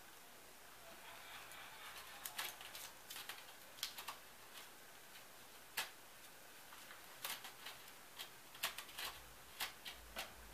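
Faint, irregular clicks and rustles of hands working pipe-cleaner petals, black tape and mini-light wire together.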